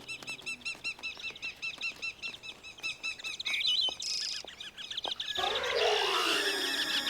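Cartoon sound effect of small birds chirping in a fast, even run of high chirps, about six a second. In the last second and a half a louder rushing sweep swells up, like a flock taking off.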